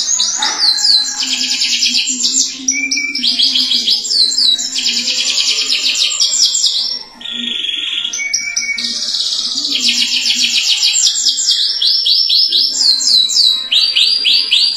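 Domestic canary singing a long, continuous song of fast rolling trills: high phrases of rapidly repeated notes, each lasting a second or two and shifting pitch from one to the next, with one brief break midway.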